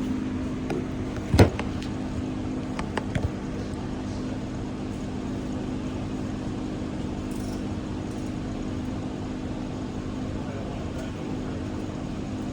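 A steady low machine hum, with one sharp knock about a second and a half in and a few light clicks around three seconds.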